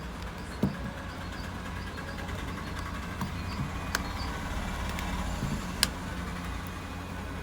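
Steady low background hum, with three short sharp clicks about a second in, near the middle and near the end.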